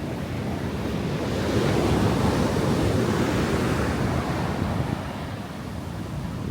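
Sea waves breaking and washing onto a beach, one surge swelling and fading over a few seconds, with wind rumbling on the microphone.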